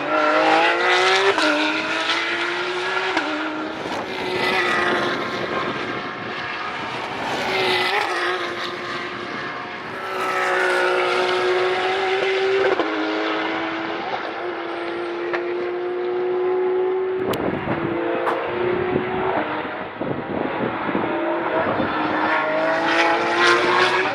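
GT race cars passing one after another at racing speed, their engines stepping in pitch through gear changes and falling away as each car goes by.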